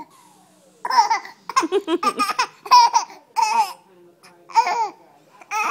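Baby boy giggling and laughing in a string of short high-pitched peals, about five bouts with brief breaths between them.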